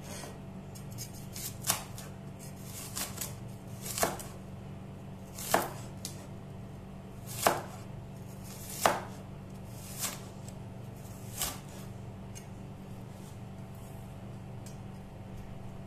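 Cleaver chopping onion on a wooden cutting board: single sharp knocks of the blade on the board, about one every one to two seconds, with lighter taps between. The strikes fade to light taps after about twelve seconds. A steady low hum runs underneath.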